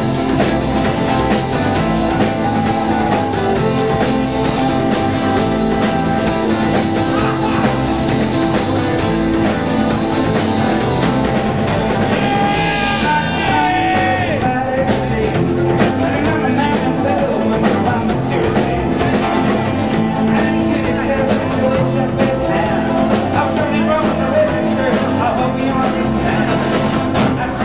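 Live rock band playing loud, guitar-driven music with singing, heard from within the audience.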